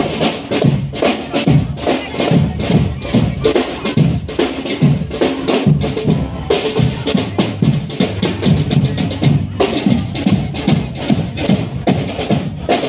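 Marching drum band playing: drums and percussion beating a dense, continuous rhythm, loud throughout.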